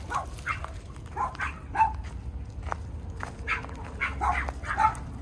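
Dog barking: a run of about a dozen short, high-pitched barks and yips, in bunches of two or three a second around the middle and near the end.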